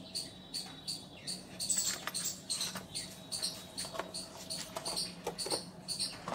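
High-pitched chirps from a small animal, repeating a few times a second without a break.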